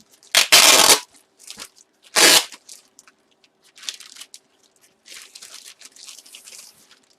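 Plastic packaging crinkling and rustling as it is handled: two loud crackling bursts near the start, then softer crinkling.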